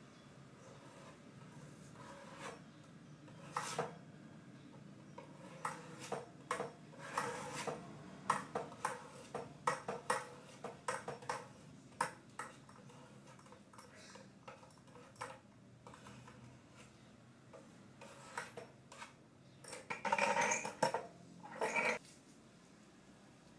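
Putty knife scraping and tapping on a plywood cabinet door while glue is spread over the panel: a run of short clicks and scrapes, with a louder burst of scraping near the end.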